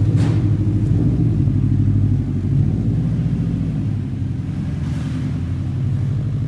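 Subaru Impreza's flat-four engine running with a low rumble as the car pulls away at low speed, a little louder in the first half.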